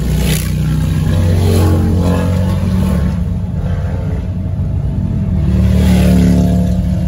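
Road vehicle engines running at highway speed: a steady low hum that swells and rises in pitch twice, about a second and a half in and again around six seconds in.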